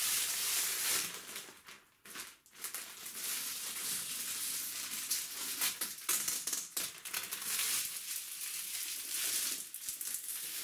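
Clear plastic wrap being peeled off a 3D printer's casing and crumpled, a continuous crinkling, crackling rustle with a brief lull about two seconds in.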